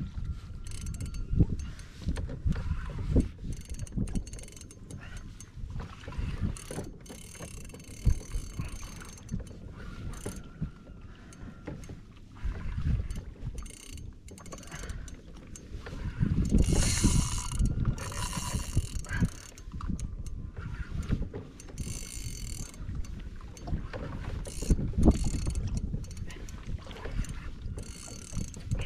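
Fishing reel being cranked against a hooked fish, its gears whirring and clicking, over wind buffeting the microphone and water against a kayak's hull. A louder stretch of whirring comes a little past halfway.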